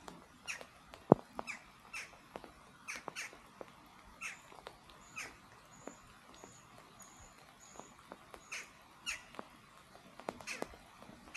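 Birds calling outdoors: scattered short, harsh calls repeat throughout, and a run of four high thin notes comes in the middle. A single sharp tap sounds about a second in.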